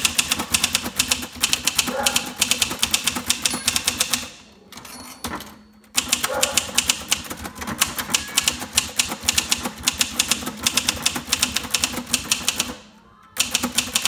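A 1971 Sears Newport manual portable typewriter, built by Messa, being typed on in quick runs of keystrokes, the typebars clacking one after another. The typing breaks off in two short pauses, about four seconds in and just before the end.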